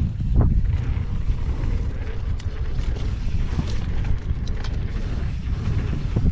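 Wind buffeting the microphone over the rumble of a downhill mountain bike's tyres on a dirt trail, with scattered clicks and rattles from the bike over bumps.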